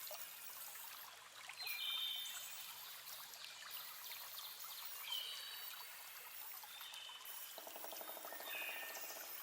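Faint running, trickling water, with short high chirps over it and a buzzy pulsing sound near the end.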